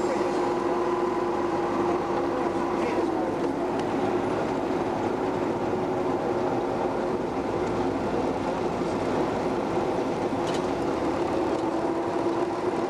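Lxd2 narrow-gauge diesel-hydraulic locomotive's engine running steadily as the locomotive rolls slowly, heard close beside its engine-compartment louvres. Its steady hum holds one pitch throughout.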